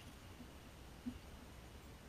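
Near silence: a faint, muffled low rumble with two soft knocks, about half a second and a second in.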